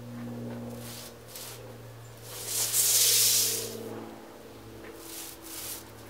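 Pencil scratching over a fibreboard template as the octagon is marked, in several short strokes with one longer, louder scrape about two and a half seconds in, over a steady low hum.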